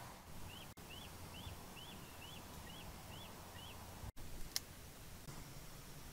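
A bird calling faintly: a run of eight short, clear, rise-and-fall notes at an even pace, a little over two a second, over a low background rumble. A single sharp click comes about four and a half seconds in.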